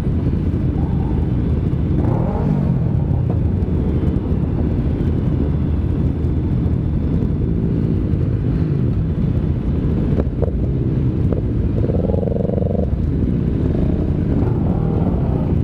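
KTM Duke 390 single-cylinder engine running at low speed with the engines of the motorcycles queued around it, a steady low rumble. A brief higher pitched sound, another vehicle or horn, comes about twelve seconds in.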